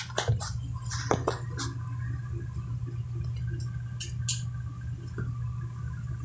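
Sharp top-load automatic washing machine running with a steady low hum while it drains before spin dry, with a few light clicks and knocks.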